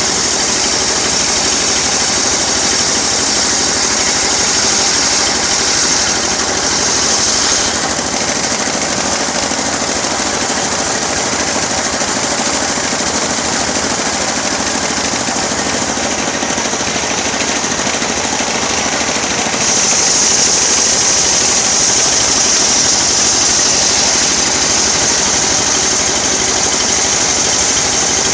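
Engine-driven homemade sawmill running steadily while sawing teak. The high hiss of the saw drops about 8 seconds in and comes back louder about 20 seconds in.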